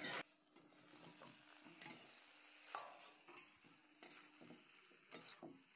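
Faint light taps and scrapes of a steel spatula on a steel plate and kadai as fried potato slices are pushed into the masala, over near silence.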